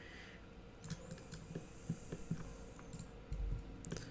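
Scattered, irregular clicks of a computer mouse and keyboard, a dozen or so short sharp clicks at uneven spacing, over a faint steady hum.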